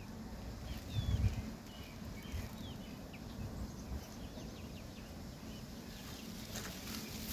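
Wind gusting on the microphone as a low rumble, strongest about a second in, with small birds chirping briefly throughout.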